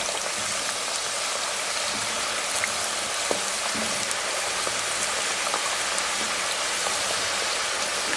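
Thick-cut potato chips deep-frying in hot oil: a steady hiss with scattered small crackles and pops.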